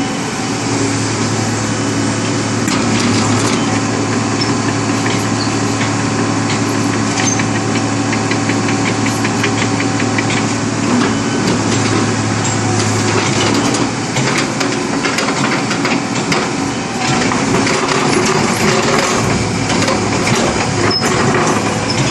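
Diesel engine of a Hitachi UH045-7 hydraulic excavator running steadily, with scattered ticks and knocks over the engine hum.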